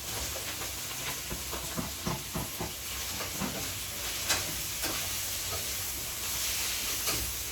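Stir-fry of beef, mushrooms and freshly added broccoli sizzling in a hot pan, with a cooking utensil clicking and scraping against the pan as it is stirred. The sizzle grows louder about six seconds in.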